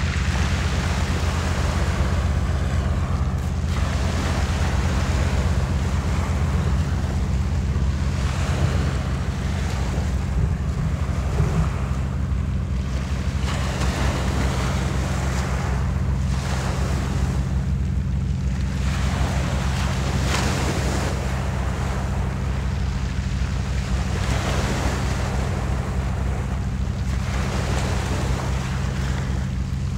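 Small waves breaking and washing up a shingle beach, swelling and fading every few seconds, over a steady low rumble of wind on the microphone.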